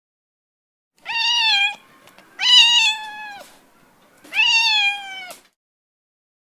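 Domestic cat meowing three times, each meow about a second long and dipping slightly in pitch at its end.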